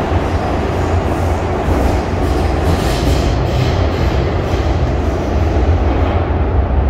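Steady rumble of an MTR M-Train running between stations in a tunnel, heard from inside the car: wheels on rail and running gear, with a hiss of rail noise over a deep low rumble.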